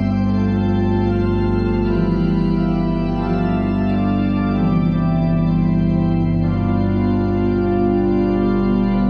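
Church organ playing slow, sustained chords over a held deep bass note. The upper notes change every couple of seconds.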